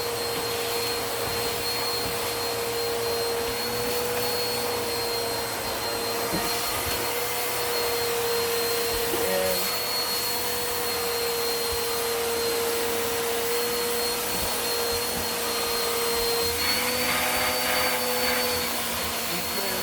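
Eureka Airspeed Plus NEU110 compact vacuum cleaner running with a hose accessory tool fitted, a steady motor whine over rushing air. Near the end the whine rises slightly in pitch and the hiss gets brighter for about two seconds.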